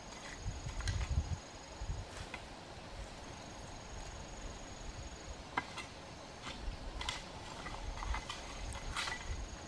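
A long-handled hoe chopping and scraping into dry, loose soil in repeated, irregularly spaced strikes about once a second. A thin, high insect trill comes and goes behind it.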